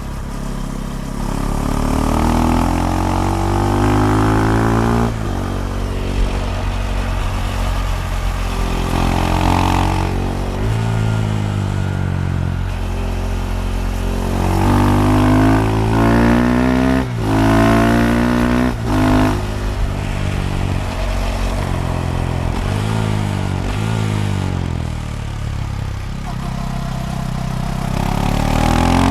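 Single-cylinder engine of a KTM Duke 390, running through a decatted Akrapovic slip-on exhaust, accelerating hard through the gears. Its pitch climbs and drops with each shift, then falls away as the bike slows, and it rises again near the end.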